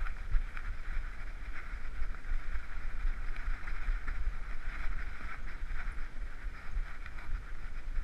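Muffled rumble and rustling from a GoPro HERO3 strapped to a moving dog's head: the camera rubbing and jostling as the dog walks, with an uneven hiss.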